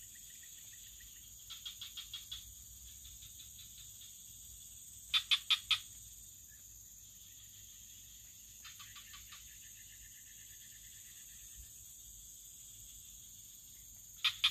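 Swamp frogs calling in short runs of four to six quick, sharp notes, four runs in all, the loudest about five seconds in. Under them runs a steady high drone of insects, with a thin trill that comes and goes.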